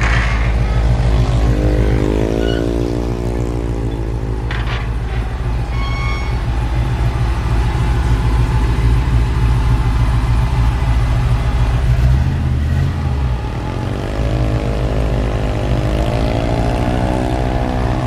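Old Chevrolet's engine running with a deep, steady rumble, revved up and back down around two seconds in and again near the end.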